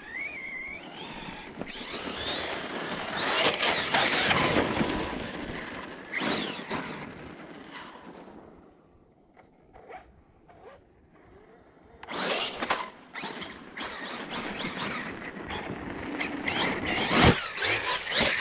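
Brushless-powered 6S ARRMA Siren 1/10 4WD RC truck driving: the motor's whine rises and falls in pitch as it accelerates and lets off, over drivetrain and tyre noise on icy gravel. It drops to a lull about eight seconds in and picks up again about four seconds later.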